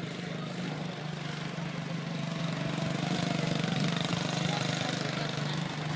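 Quarter midget race car's small single-cylinder engine running steadily at racing speed, growing louder as the car passes close by around the middle, then easing off.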